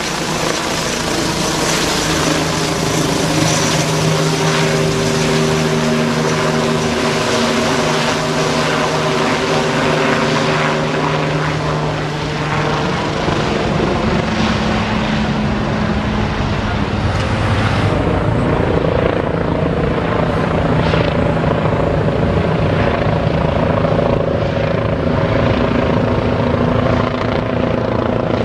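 Bell 429 twin-turbine helicopter in flight, its rotor and turbine sound continuous and loud as it hovers and then swings overhead. The tones shift in pitch about halfway through, and the high hiss dies down in the latter part as it climbs away.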